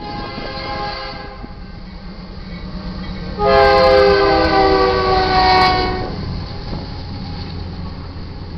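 Air horn of a BNSF GE Dash 9-44CW freight locomotive sounding a chord at a grade crossing: a blast about a second long, then a louder long blast from about three and a half to six seconds in. Under it and after it runs the steady rumble of the locomotives rolling through the crossing.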